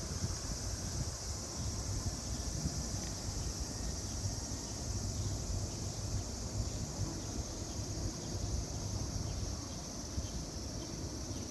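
Steady high-pitched drone of a summer cicada chorus, with a low rumble on the microphone underneath.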